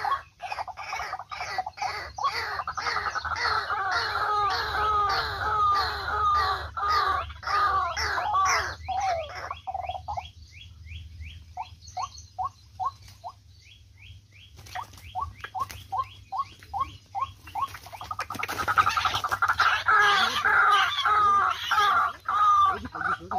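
White-breasted waterhen calling: a rapid run of repeated harsh calls, about three a second. It breaks off about ten seconds in and comes back as short, sparse series, then swells into a dense, louder bout near the end.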